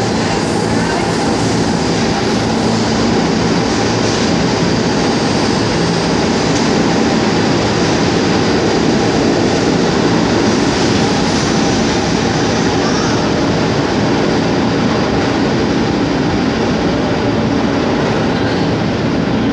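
New York City subway train running through the station, a loud steady rumble of wheels on rail with a thin high whine over it.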